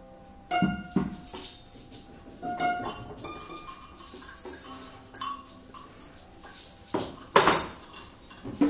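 Free-improvisation ensemble music: sparse, irregular percussive strikes and clinks mixed with short held notes at scattered pitches, with one louder burst about seven seconds in.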